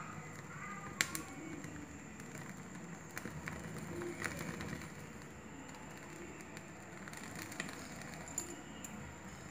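Goat's leg being singed in a gas stove burner's flame: a steady burner hiss with faint crackling, and scattered sharp clicks, the loudest about a second in.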